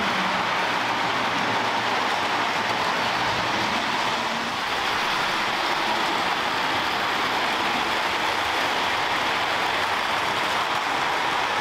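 Lionel MPC-era O gauge passenger trains, the Southern Crescent and the Blue Comet, running steadily on track: a continuous running noise of the locomotives and cars rolling over the rails.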